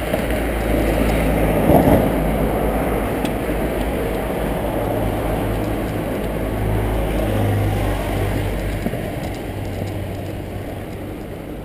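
Wind rumbling over the microphone of a camera moving along on a bicycle, a steady noise with a low hum that swells in the middle and fades toward the end.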